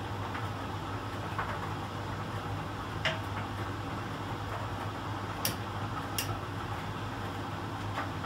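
Miele Professional PT 7186 XL commercial tumble dryer running in its drying phase: the drum turning and the blower running with a steady low hum and an airy rush. Four sharp ticks come from the tumbling load.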